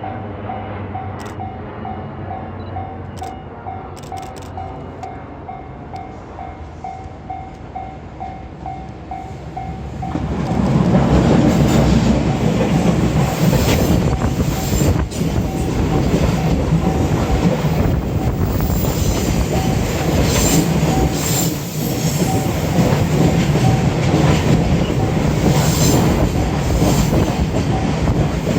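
Level-crossing warning bell ringing a rapid, even ding-ding, about two or three strokes a second. About ten seconds in, a JR Freight EF210 electric locomotive and its freight wagons reach the crossing and pass over it in a loud rumble and clatter of wheels over the rails, with the bell still ringing.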